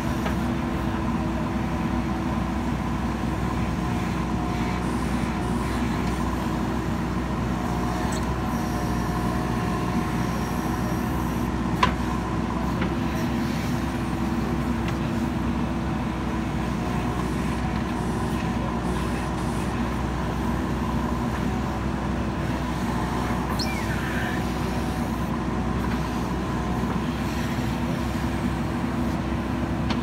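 A JCB 3DX backhoe loader's diesel engine runs steadily while the backhoe digs. A single sharp knock comes about twelve seconds in.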